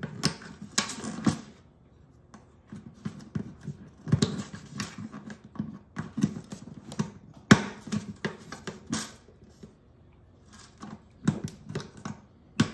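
Ebony bridge pins being levered out of an acoustic guitar's bridge with a bridge pin puller: irregular small clicks, knocks and scrapes, with one sharper click a little past the middle.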